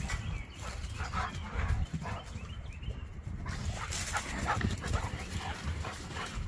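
Two dogs, a pit bull among them, playing and chasing: scattered scuffles and thumps, with a few faint dog whines about halfway through.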